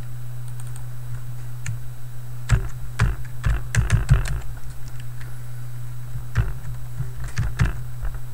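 Computer keyboard typing in two short runs of keystrokes, over a steady low hum.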